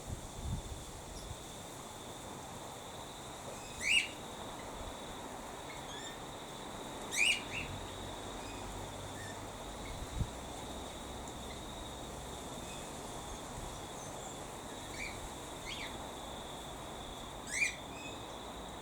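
Cockatiels calling: a few short, sharp rising calls spaced several seconds apart, over a steady high-pitched insect drone.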